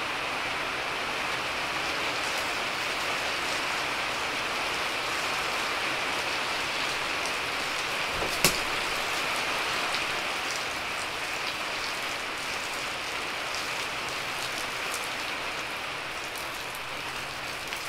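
Steady rain, heard from inside a small greenhouse, with one sharp knock a little past halfway through.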